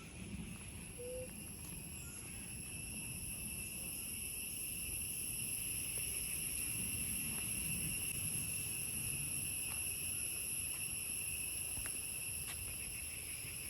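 Steady high-pitched insect chorus, like crickets trilling, with several even pitches held without a break.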